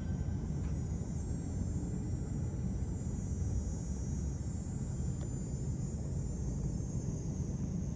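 Steady low rumble with a faint hiss over it, unchanging throughout.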